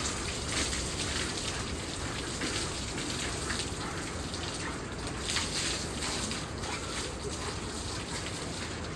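Water running steadily from a hose and splashing onto a horse's coat and the floor as the horse is washed.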